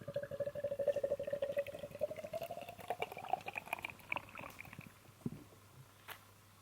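Liquid poured into a container, splashing, with a ringing tone that rises in pitch as the vessel fills. The pour stops about five seconds in.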